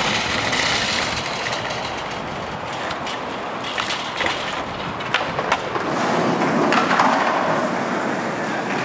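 Skateboard wheels and shopping-cart wheels rolling over asphalt: a steady rolling rumble with a few sharp clicks and rattles.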